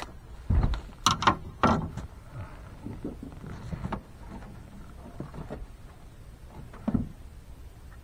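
A small catfish in the hand, croaking ('talking') as the hook is worked out of its mouth: several short bursts close together about a second in, and one more near the end.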